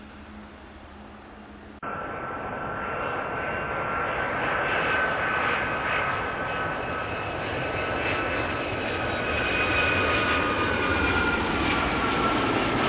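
Faint, distant jet noise, then after about two seconds a sudden switch to the much louder sound of a United Boeing 757 on final approach with its landing gear down. Its engines give a steady rush with a high whine that slowly drops in pitch as the jet draws closer and grows louder.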